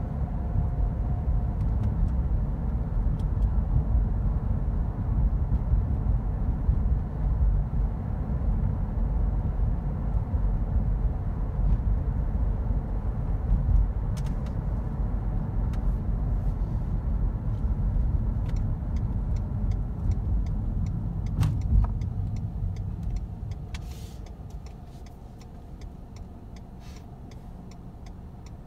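Car cabin noise while driving: engine and tyre rumble running steadily, then dropping off about three-quarters of the way through as the car slows to a stop.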